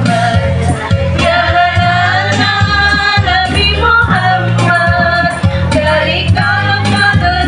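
A women's qasidah group sings a sholawat together, backed by keyboard and a steady drum beat.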